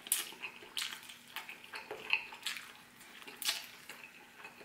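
Close-up wet mouth sounds of someone eating fried chicken off the bone: irregular smacks, slurps and sharp clicks, several a second, as the meat is pulled from a drumstick.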